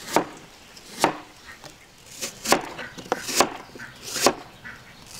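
Knife chopping on a cutting board: a series of single, sharp chops at an uneven pace, roughly one every half second to a second.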